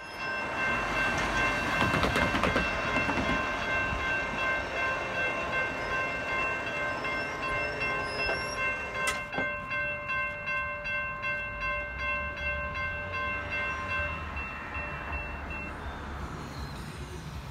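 Light-rail grade-crossing warning bells ringing rapidly and steadily as the crossing gates come down, warning of an approaching train. Most of the ringing stops about fourteen seconds in, once the gates are down.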